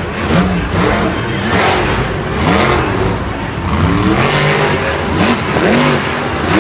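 Monster truck's big-block V8 revving hard again and again, its pitch rising and falling several times as it drives the dirt course, over steady stadium crowd noise.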